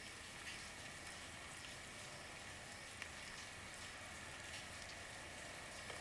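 Faint steady rain: an even hiss with a few separate drops ticking through it.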